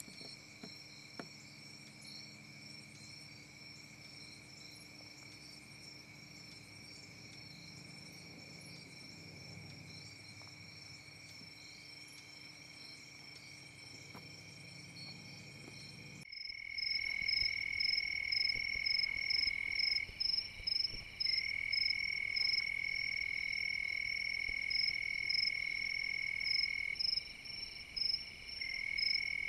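Dusk chorus of calling insects: a steady high trill with rapid pulsing chirps above it. It is faint at first and much louder from about halfway in, where the trill breaks off for a moment a few times.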